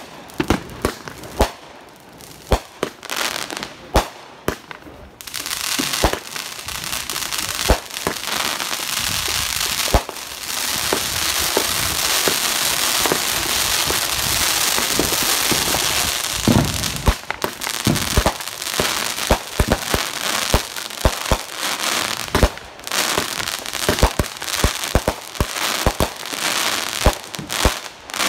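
Brothers High Faultin' 500-gram firework cake firing: a run of sharp shots and bursting breaks. About five seconds in they give way to a dense, steady crackling hiss lasting some twelve seconds, then rapid shots and pops again near the end.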